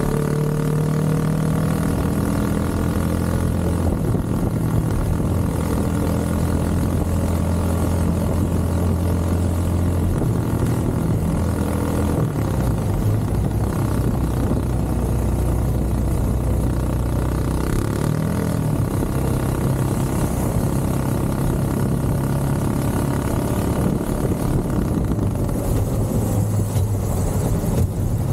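Small motorcycle engine running while riding through city traffic, its note stepping up and down a few times with throttle and gear changes.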